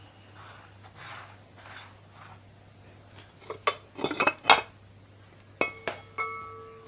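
Metal parts and tools of a dismantled ceiling fan clinking and knocking as they are handled: soft rubbing at first, a cluster of quick clinks about halfway through, then two or three sharper metallic knocks that ring on briefly near the end.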